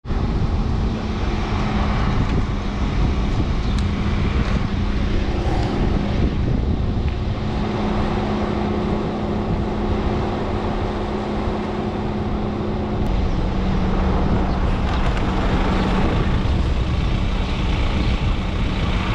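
Bus engine idling: a steady low hum that settles a little lower in pitch about 13 seconds in, over a constant rush of noise.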